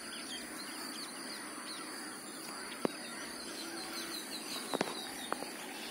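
Faint outdoor ambience: birds chirping, with a quick run of chirps about four seconds in, over a steady high-pitched hiss. A few sharp taps come about three and five seconds in.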